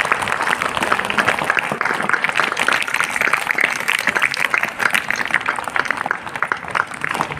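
A group of people clapping: steady, dense applause.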